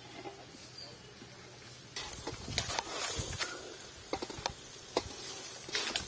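Dry coconut palm frond being pulled apart by hand: rustling with a run of sharp cracks and snaps, starting about two seconds in.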